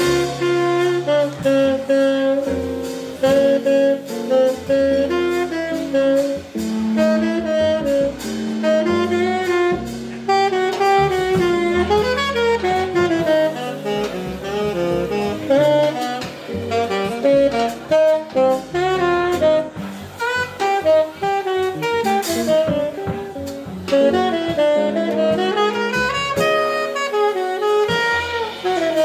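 Tenor saxophone playing a fast, continuous jazz line over a small band of archtop jazz guitar, upright bass and drum kit.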